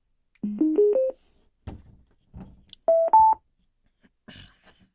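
Aiwa Orb wireless speaker beeping as it powers on: four quick beeps stepping up in pitch, then about two seconds later two higher beeps, also rising. Light handling knocks come between the beeps and near the end.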